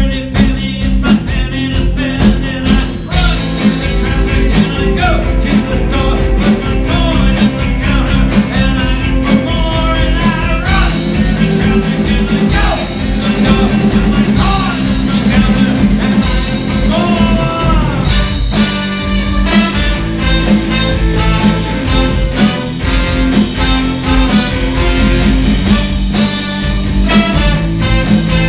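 Live rock band playing a song: steady drum beat under electric guitars, violin, cello and a horn section.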